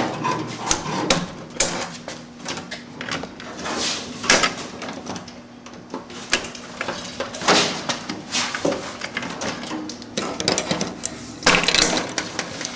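Hand wire cutters snipping through insulated wiring at the terminals of an electrical control panel: a string of short, sharp snips and clicks at irregular intervals. Near the end comes a denser rustle and clatter as the cut wire bundle is handled.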